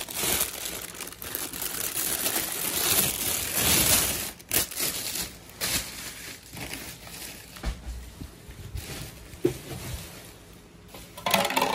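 Plastic packaging bag crinkling and rustling as it is handled, heavy and continuous for the first five seconds or so, then broken into scattered rustles and light knocks.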